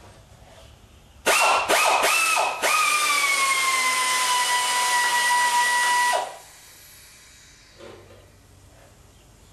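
Handheld power tool working on a fastener on a garden-tractor frame: several quick trigger blips, then a run of about three and a half seconds, a whine with a strong hiss whose pitch sags slightly under load before it cuts off.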